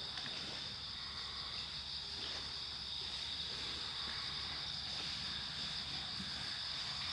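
Autumn field insects chirring steadily, a continuous high-pitched trill that holds even for the whole stretch.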